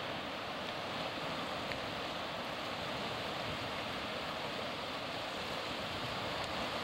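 Small waves breaking and washing onto a sandy shore, a steady rushing hiss of surf.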